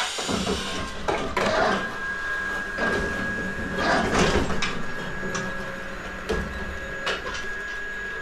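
Overhead hay crane at work in the barn: a steady motor whine over a low rumble, with several clanks and knocks from the crane and its grab.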